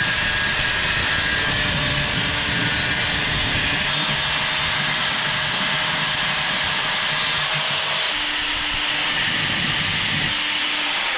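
A power tool working rusty expanded metal, cutting it and scrubbing off the rust with a wire wheel: a steady loud hiss with a faint motor whine, changing slightly about four and eight seconds in.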